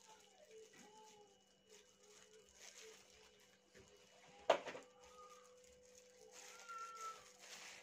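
Faint animal calls, a string of short rising-and-falling notes, over a steady low hum. A single sharp knock comes about halfway through.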